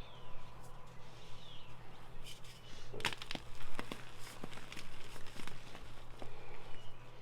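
Blocks of Ader gym chalk being crushed: scattered crunches and crumbles, with a denser burst of crunching about three seconds in. Birds chirp faintly in the background.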